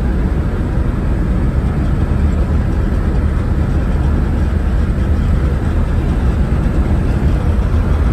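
Old car driving at highway speed: a steady, low rumble of engine, tyres and wind, unchanging throughout.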